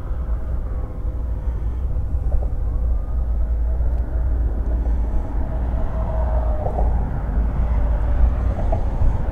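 Steady low rumble of road traffic, with a faint steady hum above it.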